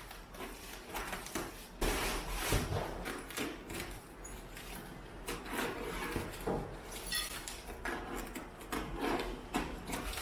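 Cardboard shipping box being handled and opened: irregular scraping and rubbing of cardboard.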